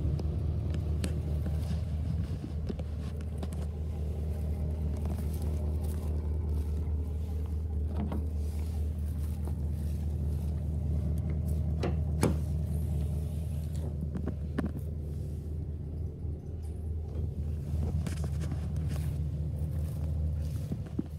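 Pickup truck engine idling steadily, a low even hum, with a few light clicks and knocks over it.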